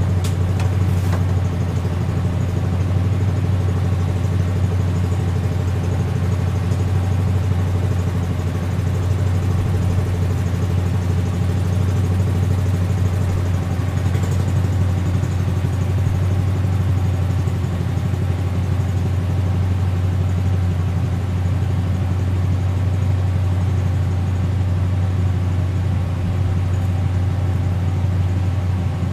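The old Squire tractor's engine running steadily at a constant speed, a low even drone with no revving.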